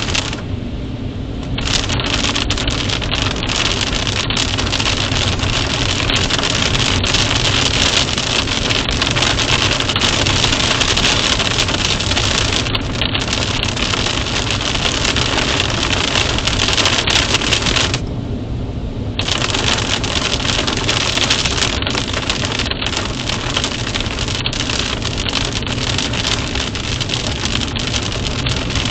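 Steady rain: a dense hiss with many small drop taps. It goes briefly muffled twice, near the start and about two-thirds through.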